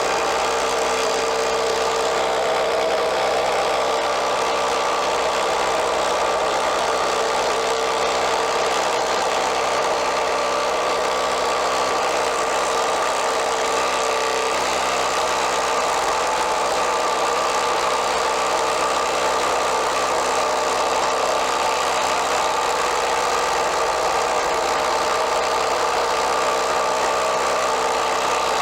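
Ryobi ONE+ HP brushless impact driver hammering steadily at full power, its impact mechanism rattling under sustained load without a break.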